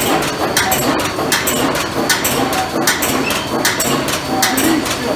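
SHMS500 wood wool machine running, its reciprocating knife bed shaving logs into wood wool: a fast, even clatter of about three to four strokes a second.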